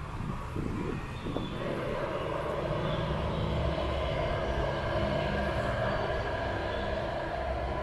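A steady engine rumble with a hiss, swelling about a second and a half in and holding steady.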